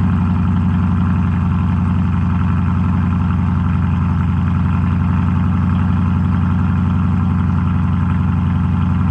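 Lexus LC 500's 5.0-litre V8 idling steadily through an aftermarket mid pipe, just after starting up; a deep, even exhaust note.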